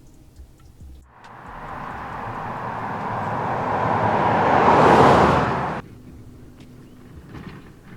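A vehicle approaching on a road: tyre and road noise rises steadily for about four seconds, then cuts off suddenly.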